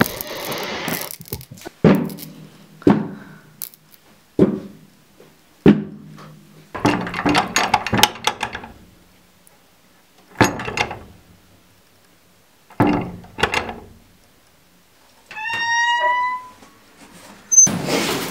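A series of separate thuds and knocks, some sharp and single, some longer and rougher, with quiet gaps between them. Near the end comes a short rising, whistle-like squeal.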